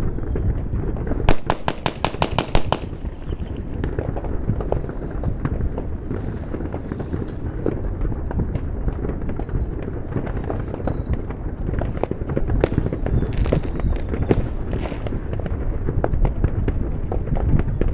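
Fireworks and firecrackers going off on all sides. About a second in comes a rapid string of about nine sharp bangs. After that the popping and crackling is continuous, with a few louder cracks scattered through it.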